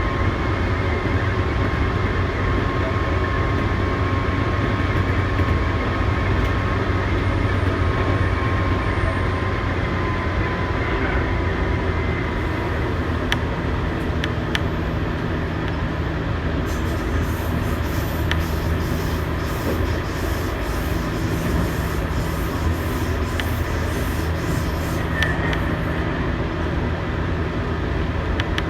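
Tobu 8000 series electric train running, heard from inside the car: a steady low rumble of wheels on rail with a motor and gear whine that drops slightly in pitch around ten seconds in. A few sharp clicks from the track come through midway and near the end.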